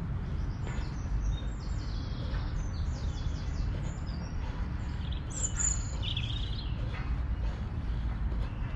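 Birds chirping in short repeated high notes, with a brighter, louder call about five and a half seconds in, over a steady low rumble.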